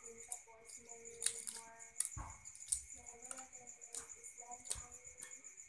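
Eggshell of a boiled balut duck egg cracking in short sharp clicks as it is peeled by hand. A steady high insect trill runs underneath.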